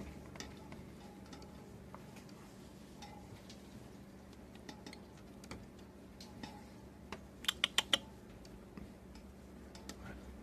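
Scattered faint clicks and light rustling over a low steady hum, with a quick run of four sharp clicks about seven and a half seconds in.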